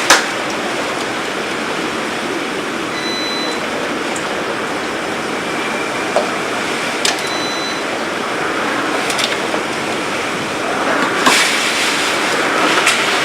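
Steady, loud rush of storm wind and heavy rain, with a few sharp clicks and knocks scattered through it and a slight swell near the end.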